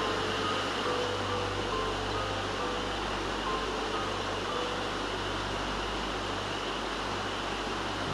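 Steady rushing of running water from a mountain river, an even noise that does not change, with a few faint soft music notes over it.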